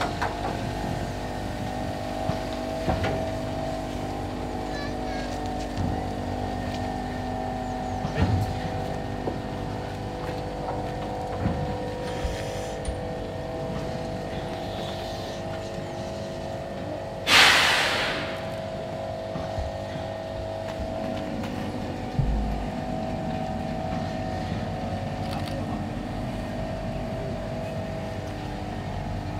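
Class 03 steam locomotive 03 2155 idling as it is turned on a turntable: a steady mechanical hum with a few light knocks, and one short, loud hiss of steam a little past the middle.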